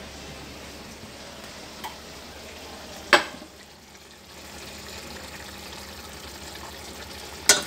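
A ceramic bowl set down on the gas stove with a sharp clack about three seconds in, and another clack near the end, over a steady sizzling hiss from cooking on the stove.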